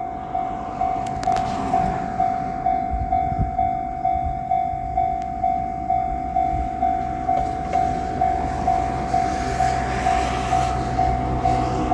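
Japanese railway level-crossing alarm ringing its repeated 'kan-kan' tone, a little under two rings a second, warning of an oncoming train; a rushing noise swells over the last few seconds.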